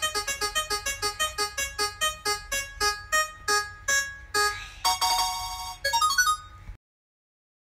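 Spin-the-wheel sound effect: a run of short, plinking keyboard notes that slows steadily as the wheel winds down, from about five notes a second to about two. Near the end a short rising jingle plays, then the sound cuts off suddenly.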